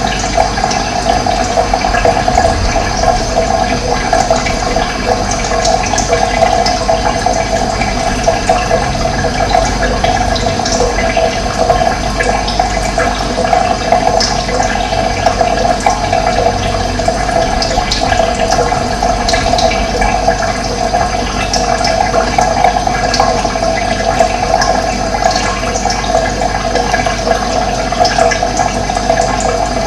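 Steady rush of running water, with faint short bird chirps scattered through it.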